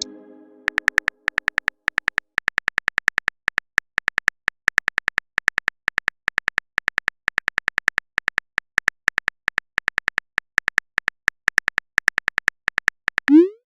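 Phone-keyboard typing sound effect: a long run of quick, light taps, several a second in uneven bursts, each with a small bright click. It starts about a second in, after the fading tail of a message chime.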